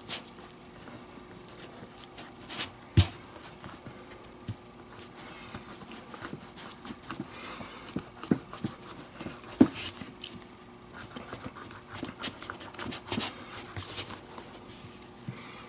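Hands working a leather baseball glove, rubbing cream into it and flexing it: irregular rubbing and creaking of leather and laces with scattered small knocks. Two sharper knocks stand out, about three seconds in and again near ten seconds.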